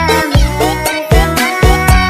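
Indonesian DJ remix music with heavy kick drum and bass hits about twice a second, under a melody that slides up and down in pitch.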